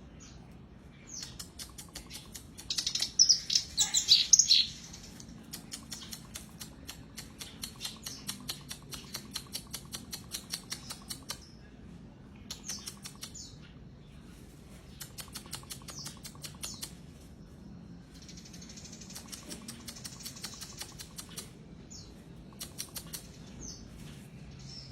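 Black-browed reed warbler (kerak basi alis hitam) singing in full voice: long runs of fast, harsh chattering notes, loudest about three to four seconds in, broken by short high whistled slurs.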